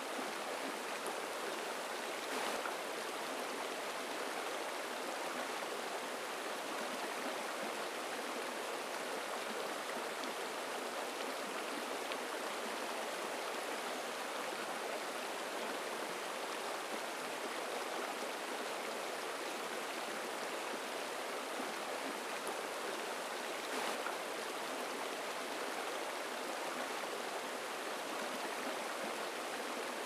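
Shallow rocky stream running and splashing over stones and small spills of white water, a steady, even rush with no change.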